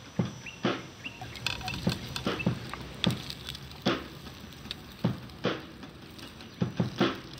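Dry leaf litter and twigs crunching and crackling in irregular snaps, roughly two a second, some with a dull thud.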